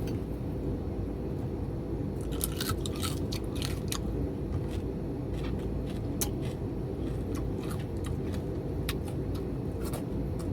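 Close-up chewing and crunching of crispy fried food, with a run of crunches about two seconds in and scattered crisp clicks after, over a steady low background noise.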